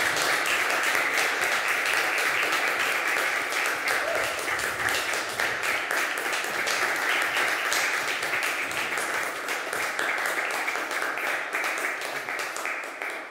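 Small audience applauding, a dense patter of clapping that dies away near the end.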